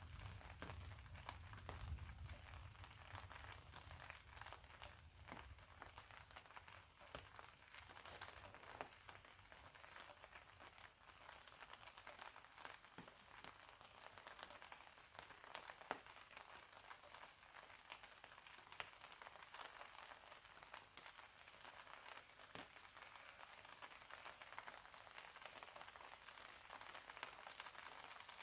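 Faint steady rainfall with many single drops ticking. A low rumble fades away in the first few seconds.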